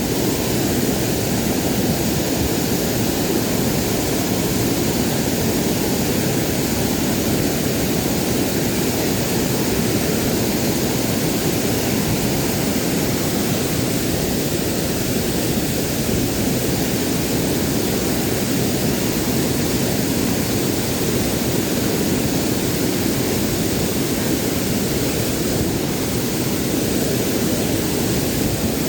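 Steady rush of a waterfall: fast-flowing water pouring without a break.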